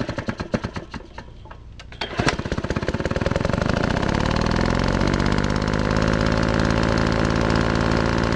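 Power impact wrench hammering rapidly on the crankcase cover bolts of a Tecumseh HSK70 engine. Uneven bursts for the first two seconds, then steady, fast hammering from about two seconds in.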